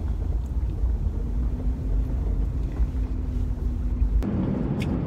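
Low, steady rumble of a car's engine and tyres heard from inside the cabin while driving slowly, with a faint steady hum through the middle. The rumble thickens abruptly about four seconds in.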